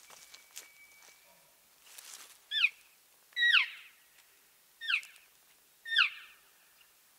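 Four short, nasal cow elk calls about a second apart, each falling sharply in pitch, made to draw a bull in. Soft brush rustling comes before them.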